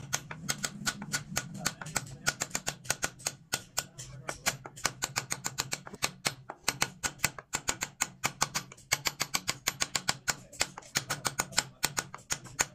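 A wood-carving chisel being tapped rapidly into a hardwood panel, several sharp taps a second with short pauses, over a low steady hum.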